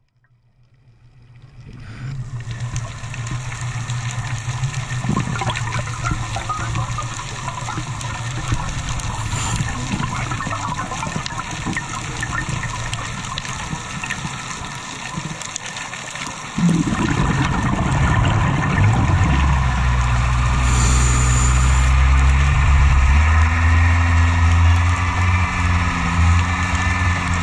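Underwater sound picked up through a dive camera's housing: a steady watery hiss with fine crackling. About two-thirds of the way through, a louder low hum with steady tones joins it and shifts slightly in pitch.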